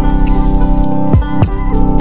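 Instrumental background music: held chords with a few sharp struck notes a little past the middle.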